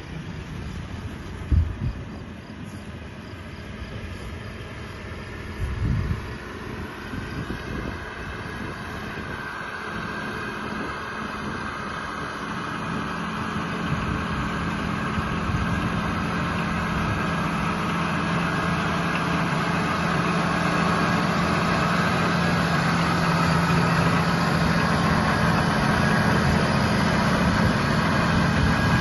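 Massey Ferguson 8120 tractor's diesel engine running steadily under load while it pulls a Feraboli round baler through the hay, the engine and baler machinery growing louder as they come closer. A couple of short low thumps come in the first few seconds.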